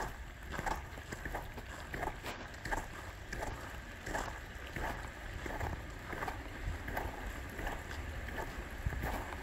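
Walking footsteps crunching on icy snow, a regular stride of about two to three steps a second, over a steady low rumble.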